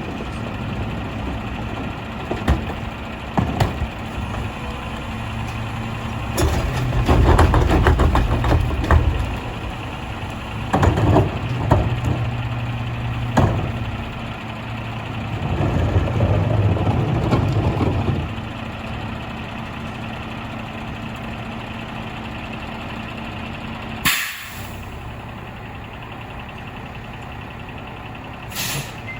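Mack LR rear-loader garbage truck's diesel engine idling, revving up twice for the hydraulics, among metallic clanks and bangs. Two short sharp air hisses near the end.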